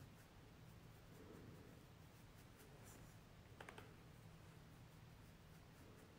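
Near silence: quiet room tone with a faint steady low hum, and a couple of faint clicks about three and a half seconds in.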